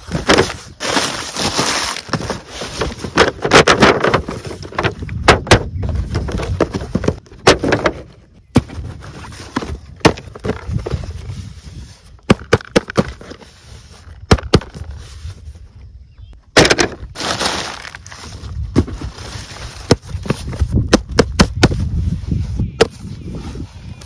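Crumpled newspaper packing rustling and crinkling as hands rummage through a cardboard shipping box, with many sharp taps and knocks of cardboard boxes being handled.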